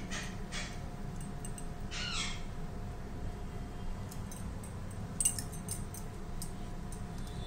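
A bird calls once, briefly, about two seconds in, the call falling in pitch; a short sharp click follows about five seconds in, over a steady low hum.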